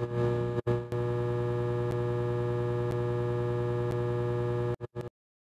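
Neon-sign buzz sound effect: an electrical hum that stutters on in a few flickers, holds steady, then flickers off in two short bursts about five seconds in.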